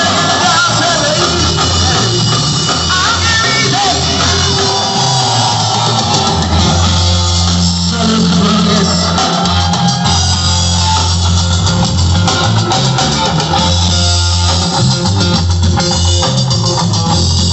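Rock band playing loud and live: guitar, drum kit and a man singing into a microphone, heard from within the crowd.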